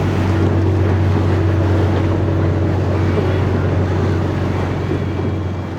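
Sightseeing boat's engine running steadily with a low hum, under the rush of wind and water against the moving boat.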